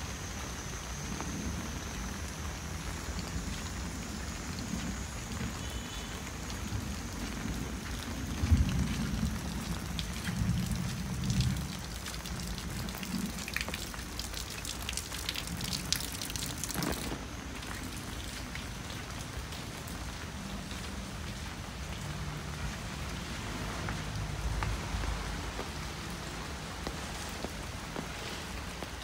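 Light rain falling steadily on leaves, roofs and a wet path, an even patter. Low thumps and rumbling run beneath it, with the loudest thump about eight seconds in.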